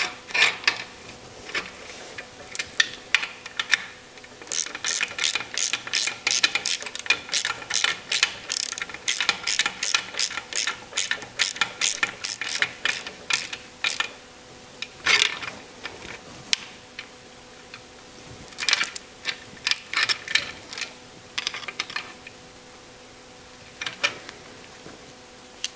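Socket ratchet clicking as it runs a timing chain guide rail bolt into the engine case. It goes in bursts of rapid clicks, a long run in the first half, then shorter runs with pauses between.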